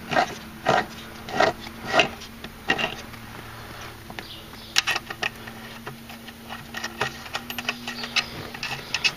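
Ratcheting wrench clicking in short runs as nuts are run onto the bolts of a car's lower door hinge, with a steady low hum underneath.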